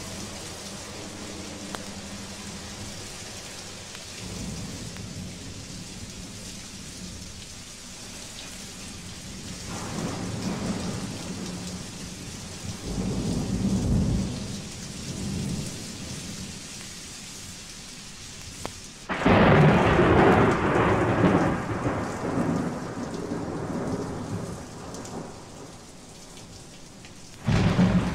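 A thunderstorm recording played from a vintage vinyl record: steady rain with several low rolls of thunder. About two-thirds of the way in, a sudden loud thunderclap rumbles away over several seconds, and another sharp clap breaks near the end.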